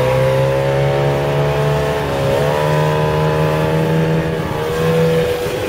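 Speedboat engine running under way at a steady speed, its pitch dipping briefly about two seconds in and again about four and a half seconds in.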